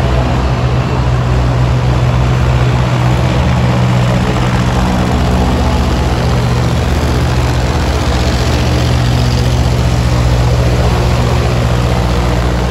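Airboat's engine and caged air propeller running loud and steady at speed across the water.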